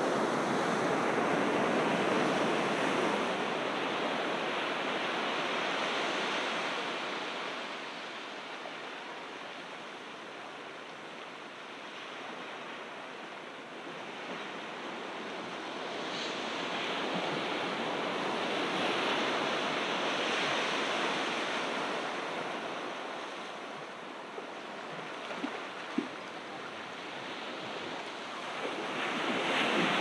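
Ocean surf breaking and washing up the beach: a continuous rush that swells and ebbs slowly, loudest at the start, around twenty seconds in, and again at the end.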